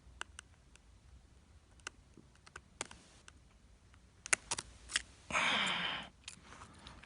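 Light, irregular clicks and taps of a small screwdriver and tiny screws on an iPhone's internal frame, with a short breathy rush of noise about five seconds in.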